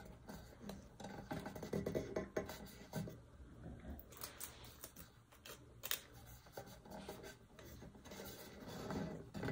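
Faint rustling and rubbing of sublimation paper under hands as it is smoothed tight around a tumbler, with small handling noises of heat-tape pieces and a few light clicks, one sharper about six seconds in.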